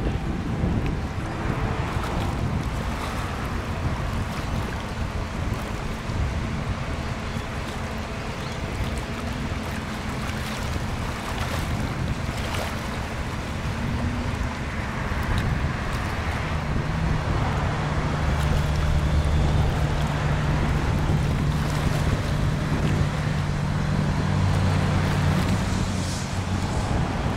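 Wind rushing on the microphone; a little past halfway a low, steady outboard motor hum comes in and gets louder as the small aluminium boat motors off.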